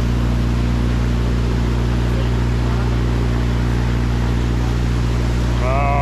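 Steady low drone of a small motorboat's engine towing a raft, with a constant hiss of water and air. Near the end a person's voice calls out briefly in a wavering tone.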